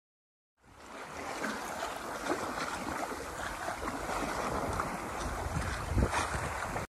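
Water rushing and splashing along the hull of a Catalina 30 sailboat under way through choppy water, starting about half a second in, with a louder splash about six seconds in.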